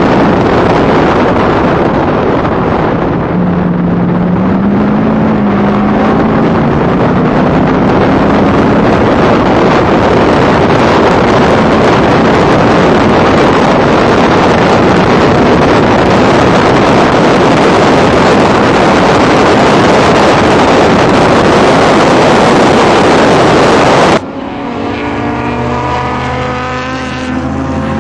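Factory Five Cobra race car heard from on board at speed: a loud engine roar mixed with wind rushing over the microphone, the engine note climbing slowly over the first several seconds. About 24 seconds in, the roar drops off abruptly to a quieter, lower engine note.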